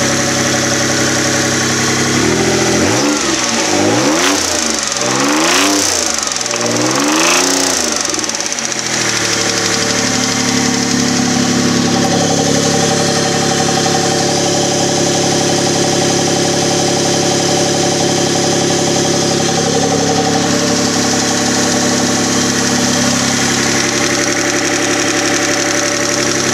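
Engine idling, revved up and back down three times about two to eight seconds in, then settling to a steady idle. The owner suspects a spun bearing.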